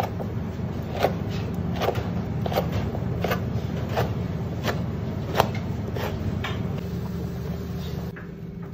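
Knife blade scraping along a tuna's backbone and ribs in regular strokes, about one every 0.7 seconds, over a steady low hum.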